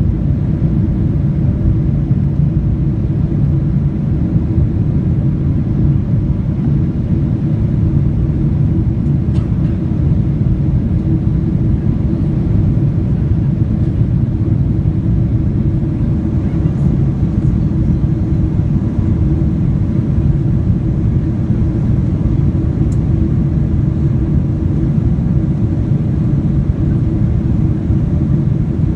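Boeing 777-200ER cabin noise heard from inside the cabin: a steady, loud low rumble of engines and airflow, with a constant hum.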